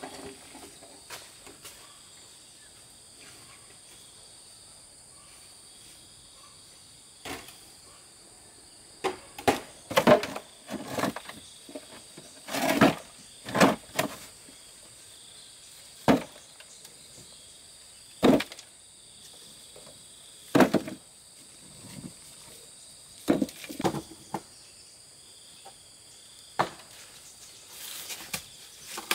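Concrete blocks knocking together and being set down in a metal wheelbarrow: a dozen or so separate knocks, irregular, starting about a quarter of the way in. A steady high buzz of insects runs underneath.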